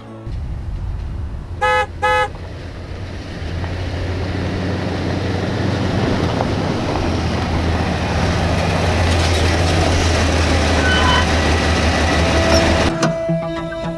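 A vehicle horn toots twice in quick succession. Then a motor vehicle's engine runs with a low rumble and road noise that grows louder, and it cuts off suddenly near the end.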